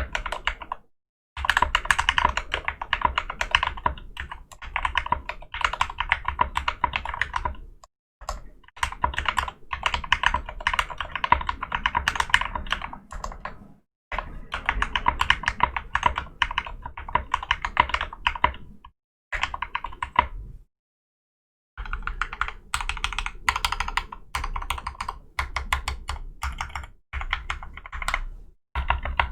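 Drop CTRL mechanical keyboard with Gateron Clear linear switches, lubed stabilizers, case foam and XDA-profile keycaps being typed on in fast runs of keystrokes, with short pauses between the runs.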